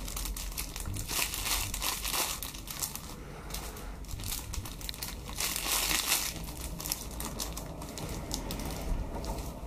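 Clear plastic bags around foam cake-roll squishy toys crinkling irregularly as hands pick them up and arrange them.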